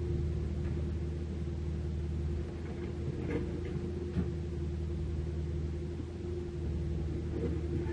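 Caterpillar 305.5E2 mini excavator's diesel engine running steadily as the machine works, with a few faint knocks of stone about halfway through as the bucket digs into rubble.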